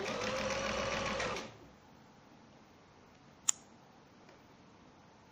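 Household sewing machine stitching fringed trim onto fabric. It runs with a motor tone that rises briefly and then holds steady, and stops about a second and a half in. A single sharp click follows about two seconds later.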